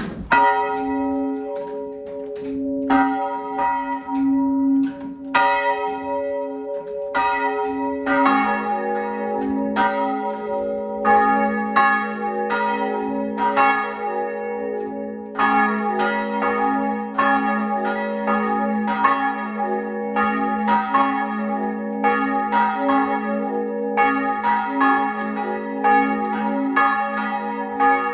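Church bells ringing: one bell striking about once a second, joined about eight seconds in by a second, lower bell, their strokes overlapping and the hum of each ringing on between strikes.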